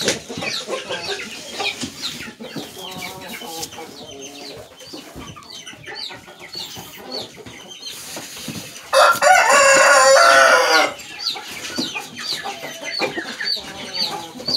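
A rooster crows once, a loud call of about two seconds starting about nine seconds in, with softer clucking and repeated short high chirps around it.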